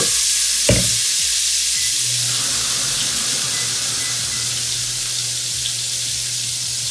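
Chopped carrots and celery sizzling in hot bacon grease in a stockpot, a loud steady hiss that eases off slightly. A single knock comes just under a second in, and a steady low hum joins about two seconds in.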